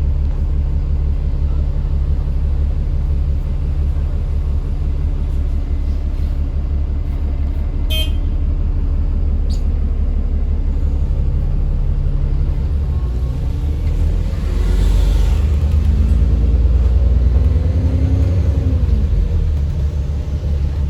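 Alexander Dennis Enviro400 MMC double-decker bus engine running with a steady low drone, heard on board. About fourteen seconds in it pulls harder and louder, the pitch climbing and then dropping again a few seconds later. A brief sharp ringing sound cuts in about eight seconds in.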